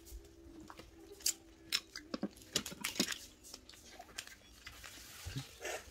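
Scattered sharp snips and cracks of red snow crab shell being cut with kitchen scissors and broken apart, with chewing between them.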